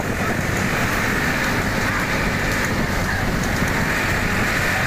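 Steady rush of wind buffeting the microphone, with road rumble from a fast-moving vehicle.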